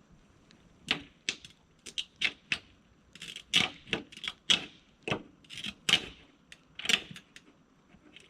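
An irregular run of sharp knocks and clicks, about two a second, starting about a second in.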